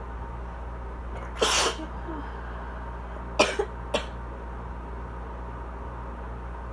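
Asthma coughing: one longer harsh cough about a second and a half in, then three quick short coughs, a cough the owner thinks is a little drier today. A loud air conditioner hums steadily underneath.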